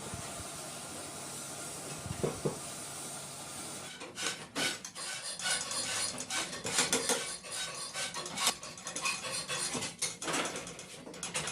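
A steady hiss, then, about four seconds in, rapid irregular metallic clinks, clatters and scraping of small metal sewing-machine parts being handled and worked.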